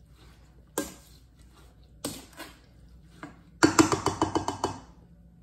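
A spatula knocking and scraping against a stainless steel mixing bowl as rhubarb pie filling is stirred. It gives a few separate knocks, then a quick run of about ten rapid knocks about three and a half seconds in.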